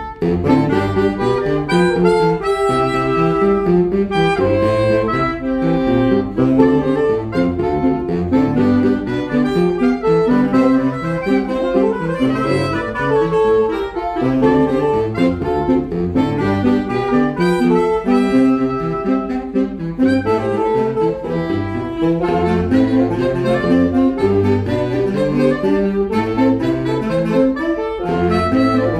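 Saxophone quintet, soprano down to baritone, playing together in continuous harmony, with the low saxophones stepping through a moving bass line under the melody.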